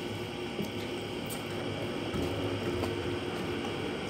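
Steady background hum and hiss, like a fan or air conditioner running, with a few faint small clicks.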